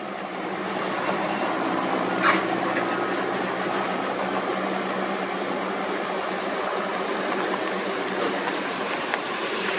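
Steady engine-like machinery drone: a low hum under a broad rushing noise, building up over the first second. A brief sharper sound comes about two seconds in.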